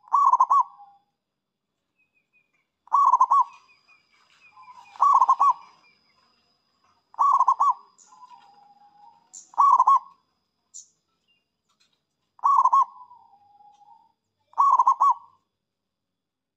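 Zebra dove (perkutut) cooing: seven quick bursts of rapid, rolling notes, some ending in a lower drawn-out note. The calls repeat about every two to two and a half seconds.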